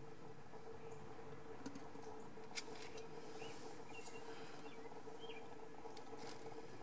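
Quiet background ambience: a steady faint hum, two brief sharp clicks about a second apart near the start, then a few faint, short, high chirps like a small bird's.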